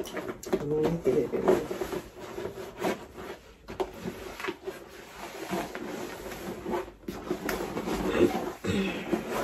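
Rustling and rubbing of a stiff canvas Hermès Herbag being handled and opened out, with a few soft knocks as a smaller item is pushed and settled inside it.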